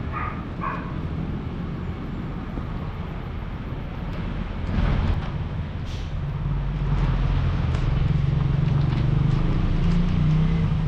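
Vehicle running on the road: a steady low engine and road rumble, with a steady low hum getting louder about six seconds in.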